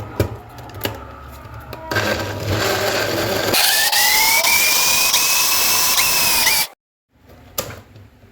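Arzum electric blender running: a rough churning whir starts about two seconds in, then the motor settles into a loud, steady high whine that cuts off suddenly near the end.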